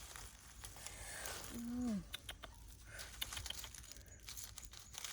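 Leaves and plant stems rustling and snapping as they are handled and picked, with scattered sharp clicks and a short voiced sound, falling in pitch, a little before two seconds in.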